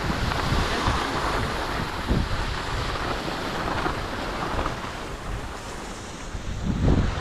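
Skis hissing and scraping over groomed snow, with wind rumbling on the microphone; the wind gets louder near the end.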